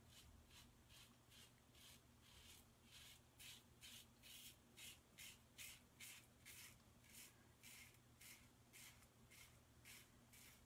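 Karve safety razor scraping through lathered stubble in short, faint rasping strokes, about two a second: a shaving pass across the grain.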